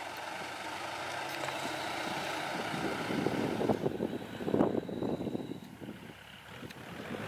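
A heavy machine's engine running, a rough, uneven mechanical noise that swells about three to five seconds in and dips shortly before the end.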